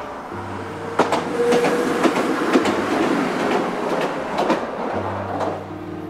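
Footsteps crossing a railway level crossing, about two steps a second with a gritty crunch, over soft background music.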